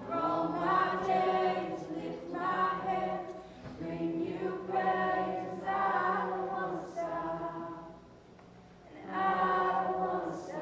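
A group of voices singing a worship song in phrases with short breaths between lines, over a steady low held note. The singing drops to a quiet lull about two seconds before the end, then comes back.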